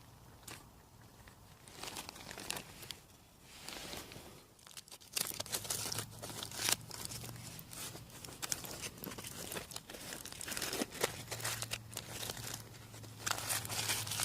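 Packaging being crinkled and torn open in irregular bursts, with a faint low hum coming and going in the middle and near the end.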